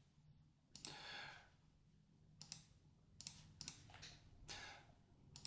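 About half a dozen faint computer mouse clicks, spread unevenly over a few seconds, against near silence.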